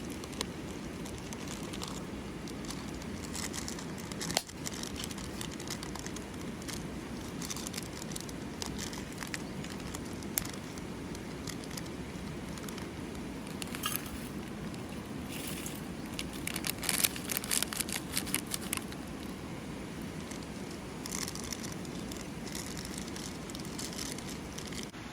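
Wood campfire crackling and popping in irregular snaps, thickest about two-thirds of the way through, over a steady low rush. A single sharp knock about four seconds in.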